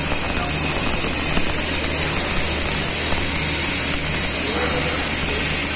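MIG (GMAW) welding arc crackling and hissing steadily as a bead is run around a steel pipe-to-flange joint, over a steady low hum.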